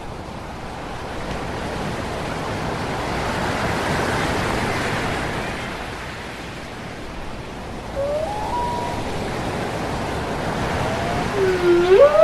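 Ocean waves washing on a shore, swelling and easing as a steady surge of surf. Short gliding cries come in about two-thirds of the way through, and again, louder, near the end.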